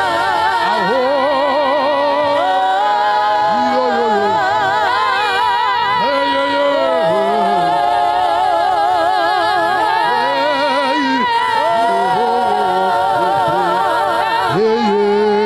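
Church worship music: singing voices hold long notes with a wavering vibrato over live band accompaniment.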